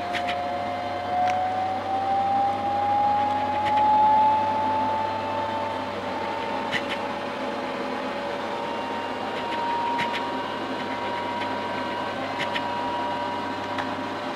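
Robot vacuum cleaner running. Its motor whine climbs in pitch over the first few seconds and then holds steady, with a few light clicks now and then.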